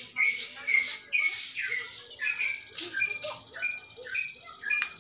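Caged songbird chirping, short high notes repeated about twice a second.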